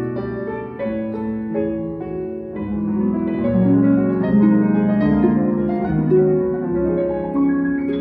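Concert harp and Steinway concert grand piano playing together in a steady stream of plucked and struck notes. The music grows louder in the middle and eases off near the end.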